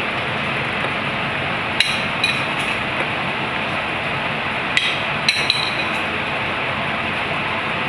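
Metal utensil clinking against a small stainless-steel saucepan as salad is spooned out: several sharp taps, each with a brief metallic ring, over a steady background hiss.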